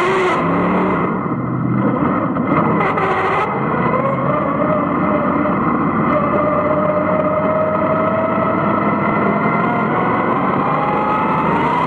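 Vintage dirt-track race car's engine heard from inside the cockpit at racing speed. Its pitch dips in the first couple of seconds, then climbs steadily as the car accelerates.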